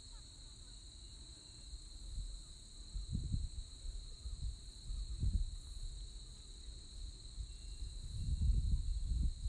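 Steady high-pitched insect chirring from grassland, with wind gusting on the microphone as low rumbles about three seconds in, about five seconds in and again near the end.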